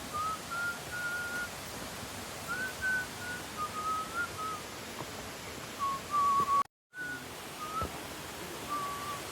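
A string of short, clear whistled notes wandering up and down in pitch, over a steady hiss, broken by a brief gap about two-thirds of the way through.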